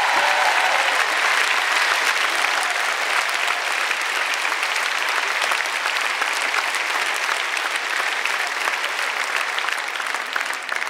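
A large concert audience applauding, a dense, steady clapping that eases off slightly near the end.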